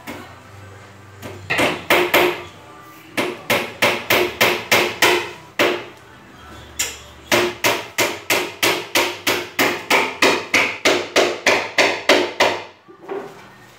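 Hand hammer striking repeatedly, about three sharp blows a second, in three runs broken by short pauses about two and a half and six seconds in.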